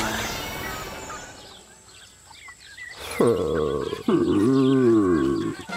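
Cartoon soundtrack fading down to faint birds chirping, then a cartoon character's wordless vocal sounds: a held, low moan followed by a sad rising-and-falling whimper.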